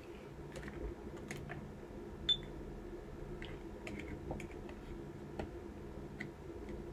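Clothing being handled in a quiet room: faint scattered clicks and rustles, with one short high-pitched beep about two seconds in.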